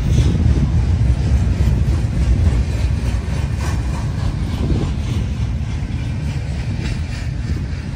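Freight train rolling past: a steady low rumble of wagon wheels on the rails, with scattered short clicks and squeaks.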